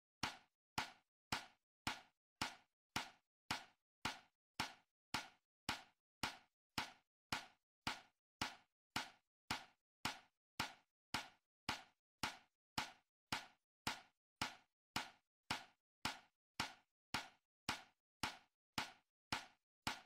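A steady run of sharp, regular clicks, a little under two a second, each dying away quickly.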